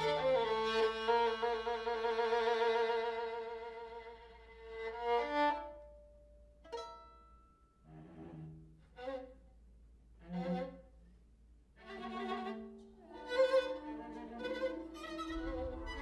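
Bowed string music from a violin and cello. Long held notes for the first few seconds fade out, there is a brief lull, and then a series of short, separate bowed notes that gets busier near the end.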